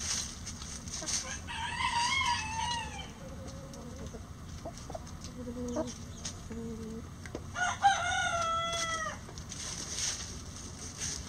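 Roosters crowing twice, each crow about a second and a half long, the first about two seconds in and the second, lower-pitched, near eight seconds, with hens clucking softly in between.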